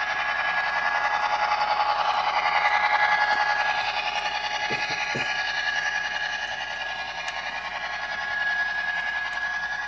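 Model freight train running along plastic track: a steady whine from the locomotive's electric motor over the hiss and rattle of the wheels on the rails.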